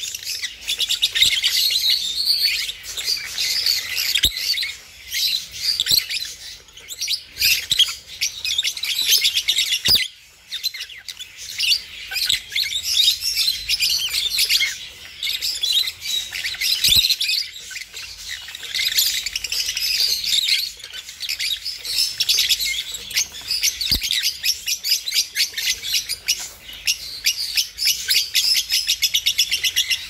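Budgerigars chirping and chattering without pause, many rapid high twitters overlapping.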